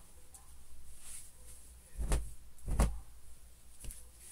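Rustling and brushing of a plush dog garment with a sherpa lining being pulled right side out through its armholes, with two louder soft thumps about two seconds in.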